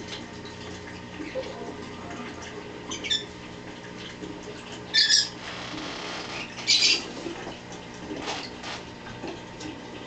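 Pet parrots calling: a short chirp about three seconds in, then two loud, harsh squawks about five and seven seconds in, over a steady low hum.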